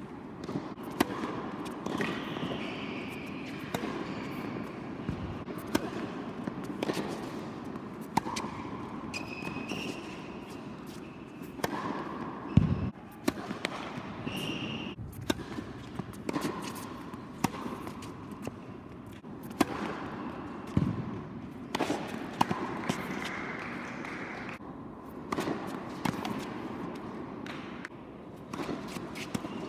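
Tennis ball bounced on a hard court before the serve, then sharp racket strikes and ball bounces in rallies, irregularly spaced, echoing in a large indoor tennis hall.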